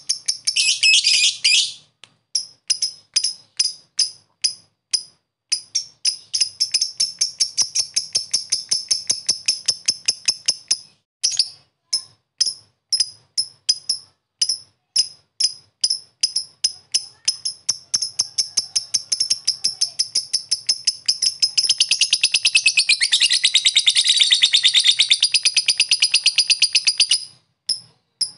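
Masked lovebird (blue mutation) giving rapid, evenly spaced high chirps, about three to four a second: the lovebird 'typing' call. At the very start, and again for several seconds past the middle, it breaks into a long, fast, continuous chattering trill (ngekek).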